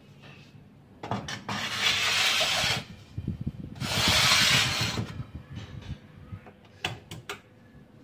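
Metal baking tray of almonds scraping along the oven's rack runners as it is slid in: two long rasping scrapes, with a few clicks and, near the end, two sharp knocks.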